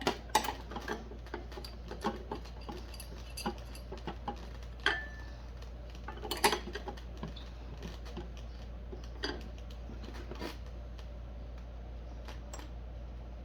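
Irregular small metallic clicks, clinks and knocks of an Allen wrench and screws working on the key machine's metal parts, over a steady low hum. The loudest knocks come about half a second in and about six and a half seconds in.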